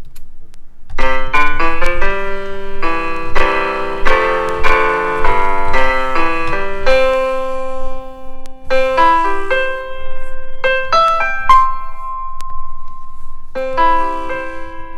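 Piano-like software keyboard instrument played live from a 32-key USB MIDI controller: quick runs of notes and chords, then a few longer held notes. It breaks off briefly about twelve seconds in and starts again near the end.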